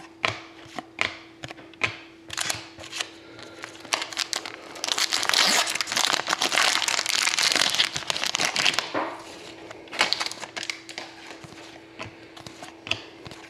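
Trading cards being flipped and slid against each other, a run of sharp clicks. About five seconds in, a card pack wrapper is opened with crinkling and tearing for about four seconds, then the clicking of cards being handled resumes.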